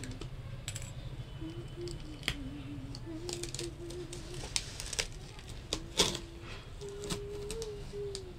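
Scattered sharp clicks and taps from a cardboard parcel and a pair of scissors being handled, over a steady low hum.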